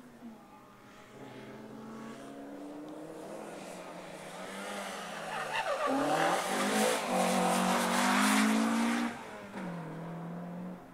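Rally car, a Peugeot 205, approaching and revving through a tyre chicane, its engine note rising and falling as it brakes and accelerates, with tyre squeal and scrabbling at its loudest in the middle. The sound drops suddenly near the end as the car lifts off and moves away.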